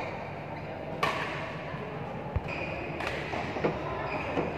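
Badminton rally: several sharp racket hits on the shuttlecock, one low thud of a footfall, and short high squeaks of shoes on the court mat, over a steady murmur of spectators in a large hall.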